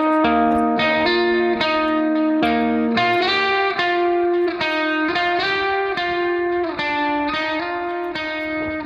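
Background music: a plucked string instrument picking out a melody one note at a time, a new note every third to half second.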